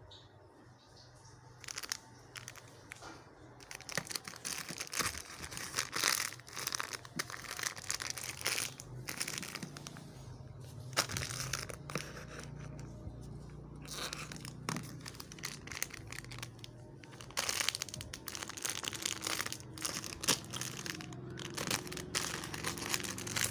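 Plastic crinkling and rustling in irregular bursts as a squishy toy in its plastic packaging is handled.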